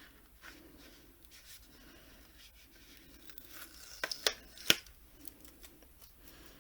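Cardboard box and its wrapping being torn and opened by hand: faint rustling and tearing, with a few sharp clicks and snaps about four seconds in.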